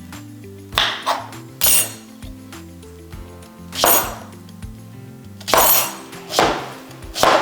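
Kitchen knife chopping a raw potato on a cutting board: sharp, irregular knocks, about eight of them, with the loudest near the middle and end.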